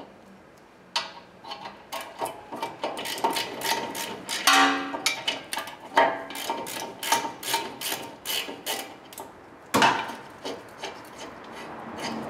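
Socket wrench ratcheting in short, irregular strokes as a brake caliper mounting bracket bolt is backed out, with metal-on-metal clicking and scraping. A ringing metal clink comes about four and a half seconds in and a sharp knock near ten seconds.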